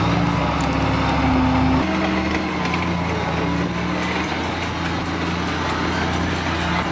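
An armoured vehicle's engine running steadily, then, just under two seconds in, a switch to a small off-road vehicle's engine heard from inside its cab as it drives along a dirt track.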